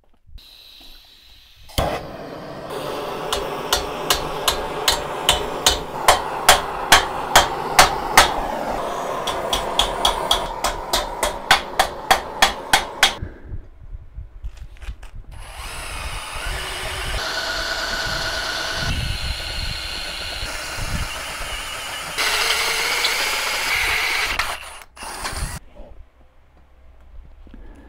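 Steel box section being worked: about ten seconds of regular sharp metal strikes, roughly two a second and then quicker, over a steady noise. After a short pause, a power drill bores into the steel end of the tube for several seconds, louder near the end. A few clicks follow.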